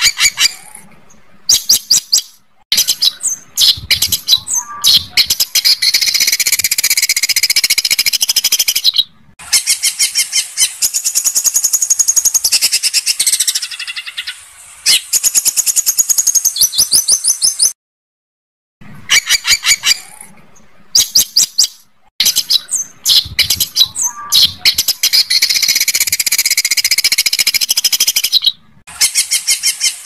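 Recorded songbird master song: harsh, rapid, rattling trills and chattering phrases delivered in quick series with short breaks. It is a looped recording; the same passage starts over about 19 seconds in, after a brief gap.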